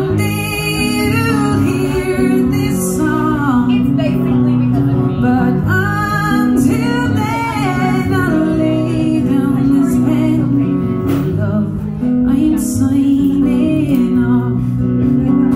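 A woman singing a song while playing an acoustic guitar, performed live solo into a microphone.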